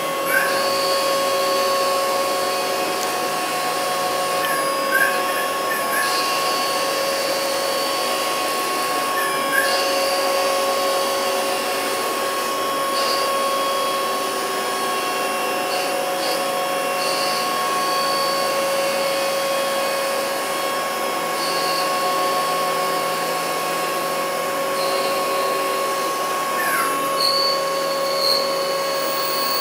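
CNC lathe running steadily as it turns a part, a machine whine with several fixed tones over a hiss, broken by a few brief chirps from the cut.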